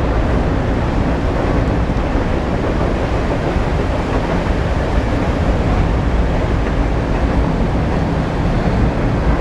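Loud, steady rush of a fast stream's rapids, white water pouring over and around boulders.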